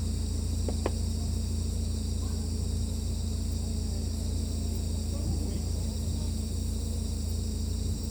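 Crickets chirring in a steady night chorus over a steady low hum, with one short click a little under a second in.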